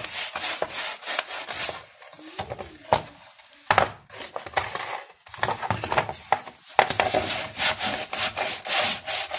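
Coarse salt scrubbed by hand over a greasy kitchen range hood, a gritty scraping in quick repeated strokes. It turns sparse and quieter for a few seconds midway, then comes back as steady, louder scrubbing.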